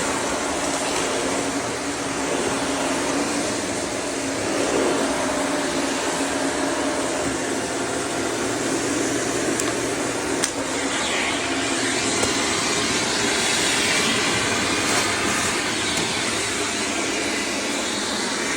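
Vacuum cleaner running steadily, a constant motor hum over a wide airy hiss. There is a small click about ten seconds in, after which the hiss turns slightly brighter.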